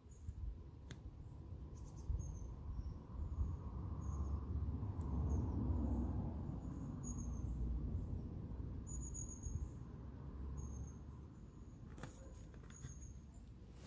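Outdoor ambience: a low rumble that swells over the first half and then eases off, with short high-pitched chirps at irregular intervals. Near the end come a few faint crackles from vinyl decal transfer tape being worked on the car door.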